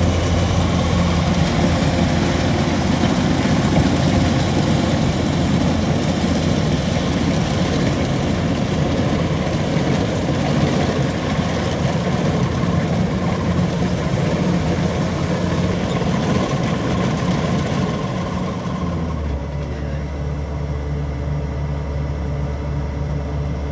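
Kubota DC-105X combine harvester's diesel engine running steadily under load while it cuts and threshes rice, a low drone over a broad mechanical noise. About 19 seconds in, the higher part of the noise falls away and a lower, steadier hum remains.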